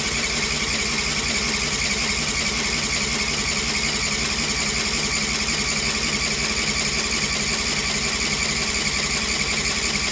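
Electric starter steadily cranking a cold 20 hp Briggs & Stratton V-twin small engine that does not catch: the engine is flooded with fuel.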